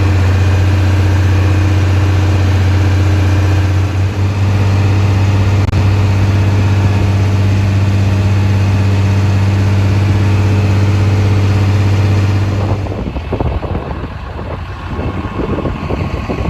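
Combine harvester engine running at a steady speed, a constant low hum. About 13 seconds in it gives way to a rougher, fluctuating engine sound.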